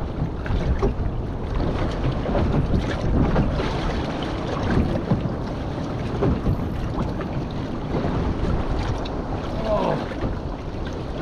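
Wind buffeting the microphone over the wash of a choppy, swelly sea around a small boat, the noise rising and falling in gusts.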